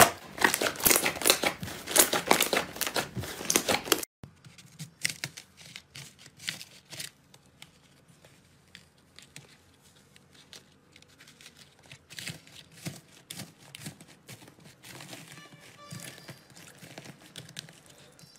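Slime being kneaded and squeezed by hand, crackling and popping in dense rapid clicks. About four seconds in it drops to a much fainter, softer crinkling as a fluffy green slime is pressed and pulled apart in a bowl.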